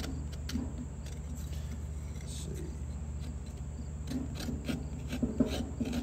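The small saw blade of a Victorinox Hiker Swiss Army knife cutting into a damp, weathered board, making a series of short rasping strokes at an uneven pace.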